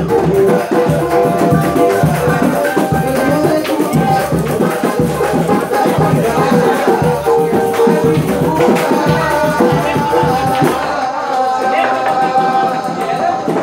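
Loud music with a steady beat and shaker-like percussion, with some voices over it.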